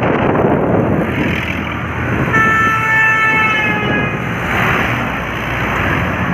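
A vehicle horn sounds once, held for about two seconds a couple of seconds in, over a steady rush of road traffic and wind noise from riding along a highway.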